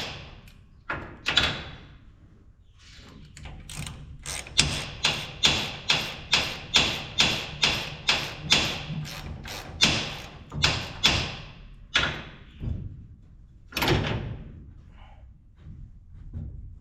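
Hand ratchet wrench working a bolt out of the drill's gearbox, a steady run of short ratcheting strokes about two or three a second, with a few separate strokes near the end.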